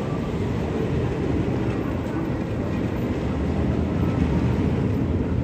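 Boomerang-style steel shuttle roller coaster train rumbling along its track, a steady low rumble that grows a little louder near the end.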